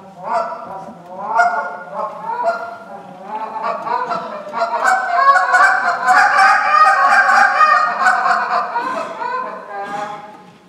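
Goose call blown by hand in a contest routine imitating Canada geese: separate honks and clucks, then from about four seconds in a fast, louder run of notes that eases off near the end.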